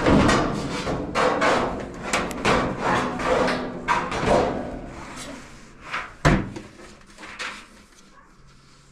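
Whirlpool electric dryer running, its drum giving off repeated scraping knocks over a steady hum, with one sharp knock about six seconds in and the sound dying down toward the end. The noise comes from something caught in the drum seal scratching on the cabinet.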